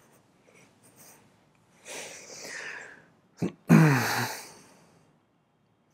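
A man's breathy exhale, then about four seconds in a short, loud voiced sigh that falls in pitch.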